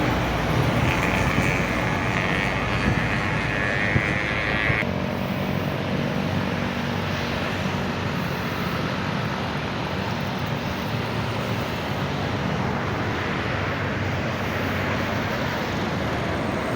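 Large diesel bus engines running in passing road traffic, a steady rumble. A higher hiss sits over it for the first few seconds and stops abruptly.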